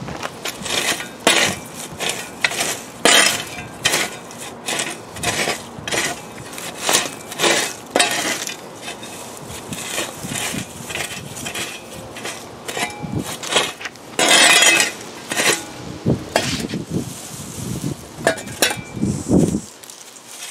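Metal garden spade and hand tool scraping and knocking through wood-chip mulch and soil while clearing the ground: a string of irregular sharp clinks and scrapes, one or two a second, with a longer scrape about two-thirds of the way through.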